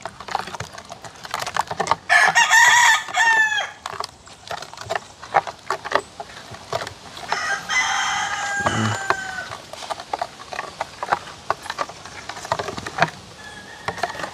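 A rooster crowing twice, about two seconds in and again around seven seconds in, each call ending on a falling note. Underneath, the repeated clinks and scrapes of a metal spoon stirring in a glass bowl.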